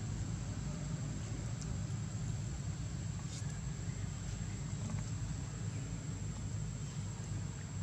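Steady low outdoor background rumble with a thin, steady high-pitched whine above it and a couple of faint ticks.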